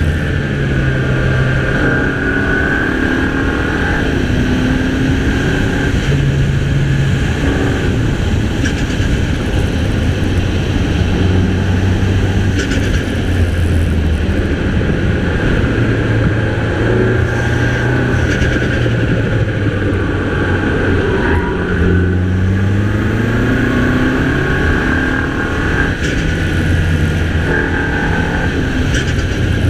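MINI Cooper's 2.0-litre turbocharged engine pulling through the gears on a winding road. Its pitch rises under acceleration and drops back again and again, with one long climb about three-quarters of the way through.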